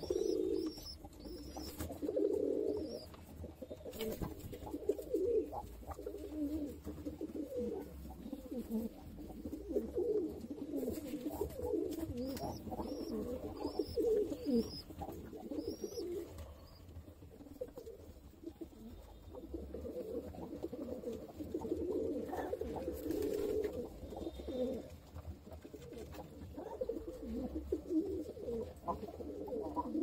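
Domestic pigeons cooing in a loft, a repeated low warbling coo, with short runs of faint high-pitched peeps at the start and again around the middle.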